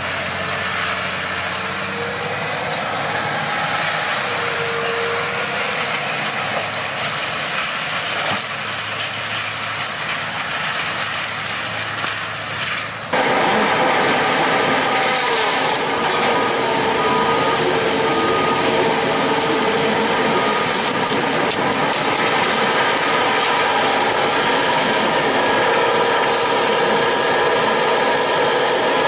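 Tractor-mounted forestry mulcher grinding through brush, the tractor engine running steadily under load. About 13 s in the sound changes abruptly to a louder tracked feller buncher with a disc-saw head: engine and hydraulics running with a steady whine of several tones.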